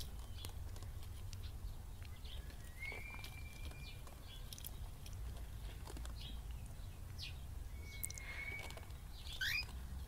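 Small pet parrots chirping softly: scattered short chirps, two held whistles and a quick rising call near the end, with light clicks, over a low steady rumble.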